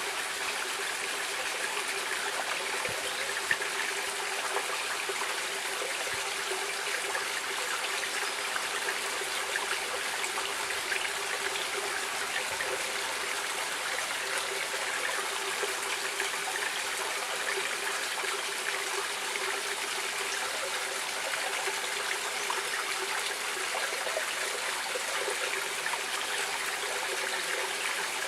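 Stream water running and trickling steadily over stones, an even rushing with fine splashing detail.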